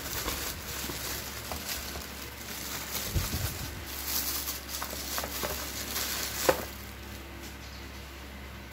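Clear plastic wrapping crinkling and rustling as a wrapped set-top box is handled and lifted out of its cardboard carton, with a sharp tap about six and a half seconds in. The crinkling dies down for the last two seconds.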